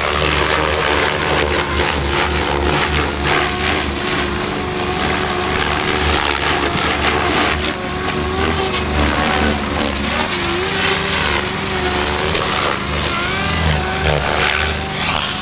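SAB Goblin 700 RC helicopter flying 3D aerobatics: the main rotor blades chop and whoosh, and a whine rises and falls in pitch as the blades load and unload.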